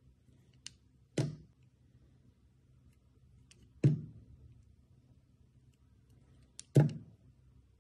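Wide utility-knife blade cutting slices off a bar of clear soap: three separate crisp cuts, each a short sharp crack that fades within half a second, about every two and a half to three seconds, with a light tick from the blade just before the first and the last.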